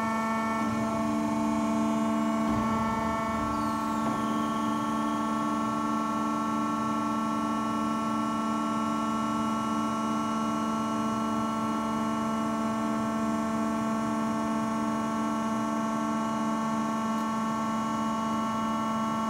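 Akyapak AHS 20/25 four-roll hydraulic plate bending machine running, its motors giving a steady hum made of several constant tones.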